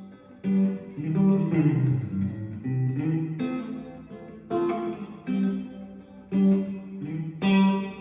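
Electric guitar through a single-coil pickup in the neck or middle position, playing picked chords struck about once a second with a short run of single notes about one to three seconds in.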